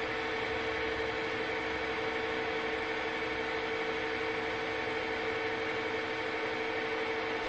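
Milling machine running at a steady, reduced speed, spinning a Chrysler distributor mounted with its cap off: a steady hum with a constant whine, at a speed equal to about 1500 engine RPM.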